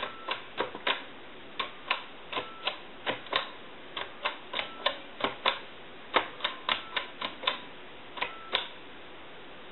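Western Electric 2500 touch-tone keypad buttons clicking as they are pressed one after another, roughly three sharp clicks a second, with a faint short tone a few times.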